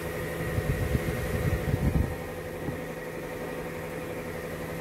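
Steady hum of a Toyota Calya's roof-mounted rear air circulator fan blowing air from the air conditioning, over the idling engine. Some low, irregular bumps come through in the first two seconds.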